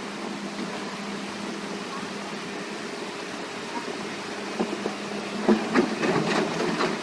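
Excavator running with a steady hum. From about four and a half seconds in, a cluster of knocks and clatter.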